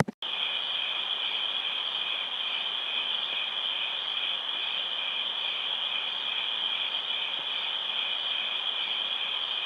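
Steady chorus of crickets chirping.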